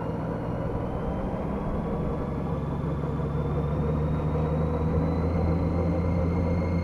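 Honda F6B motorcycle's flat-six engine running at low speed and slowly picking up, heard through a helmet camera, with a faint whine that rises gradually in pitch.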